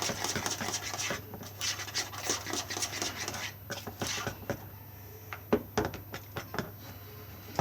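A spoon stirring cake batter in a bowl: irregular scraping and light clinks of the spoon against the bowl, with a few sharper knocks a little past the middle.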